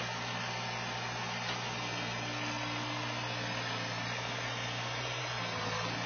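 New Holland skid steer's diesel engine running at a steady speed: a constant low hum with a noisy rattle over it.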